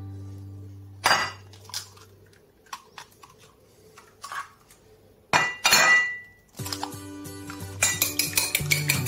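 Clinks and knocks of kitchen dishes and utensils: a sharp knock about a second in, a few light clicks, and a louder clatter with a brief ring about five seconds in. Background music fades out at the start and comes back after the clatter.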